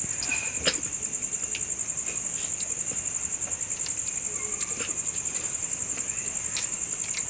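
Crickets chirring steadily: one continuous, high, rapidly pulsing trill, with scattered small clicks and taps over it.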